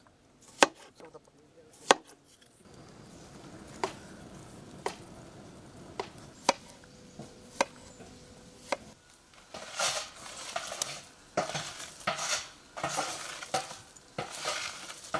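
A knife slicing vegetables on a cutting board. About eight single sharp knocks come roughly a second apart, then give way to a run of rougher scraping and rustling noises in the last five seconds.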